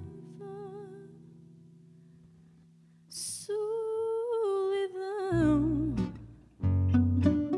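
Fado: a held note with vibrato dies away into a hushed pause. About three seconds in the singer takes an audible breath and sings a long wordless note that wavers and slides downward. Near the end the string trio of Portuguese guitar, viola de fado and acoustic bass comes back in with plucked notes and deep bass.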